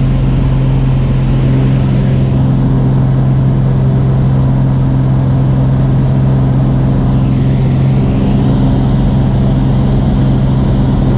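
Engine and propeller of a small single-engine high-wing plane, heard from inside the cabin as a loud, steady drone during takeoff, with the plane close to the ground.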